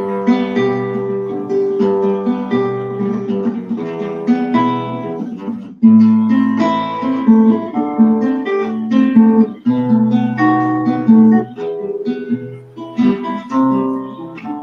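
Acoustic guitar strummed in chords, an instrumental introduction to a hymn, with a louder strum about six seconds in.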